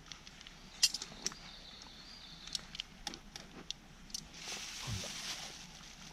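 Scattered small clicks and taps of camp cooking gear as the breakfast is seasoned, then a plastic bag rustling for about a second, about four and a half seconds in.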